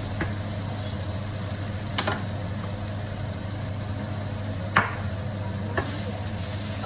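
Onions cooking in a frying pan, with a utensil clicking against the pan four times, loudest about five seconds in, over a steady low hum.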